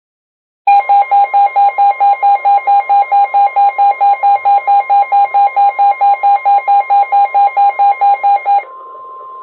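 Weather radio alert: a rapid beeping alarm, about four to five beeps a second, sounding over a steady single-pitch warning alarm tone near 1 kHz. This is the alert that signals a National Weather Service warning broadcast is about to follow. Near the end the beeping stops and the steady tone carries on alone.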